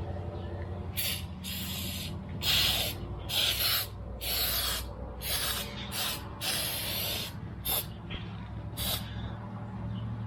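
Aerosol spray adhesive hissing from the can in about a dozen short bursts as it is sprayed onto a torn vinyl seat, over a steady low hum.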